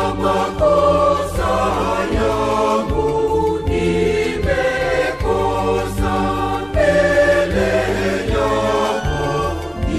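A choir singing a Swahili Lenten hymn in harmony, over a steady bass line and a regular beat.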